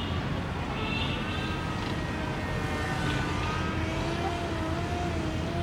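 Small electric motor and propeller of a homemade RC jet droning in flight. Its thin whine drifts up and down in pitch over a steady low rumble.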